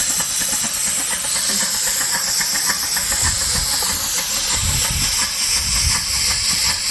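Dake square-piston steam engine running on compressed air: a steady, loud exhaust hiss with a rapid, even chuffing pulse from the piston strokes.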